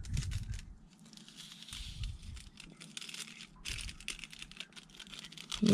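A small seed sachet being handled and torn open by hand, crinkling and tearing on and off.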